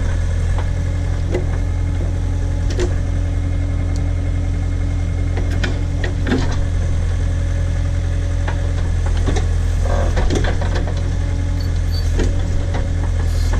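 Tractor backhoe engine running steadily while the backhoe digs, with scattered short knocks and clicks from the bucket working dirt and stump roots.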